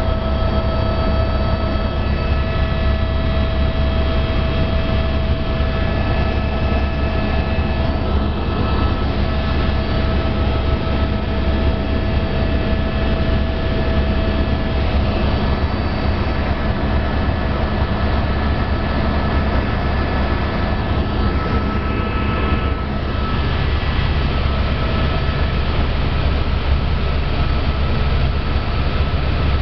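Helicopter cabin noise in flight: a steady low drone from the rotor and engine, with several high, steady whining tones above it.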